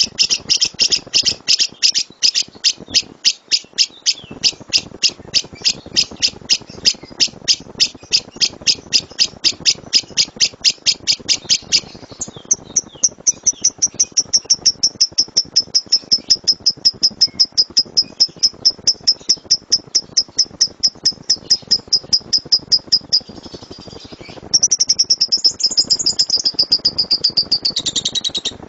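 Lovebird giving a long, loud chattering trill (the rolling 'tembakan' song used for training other birds): a string of sharp high chirps, about five a second, which turns into a faster, thinner run partway through. It breaks off briefly about 23 seconds in, then comes back in a louder burst that stops near the end.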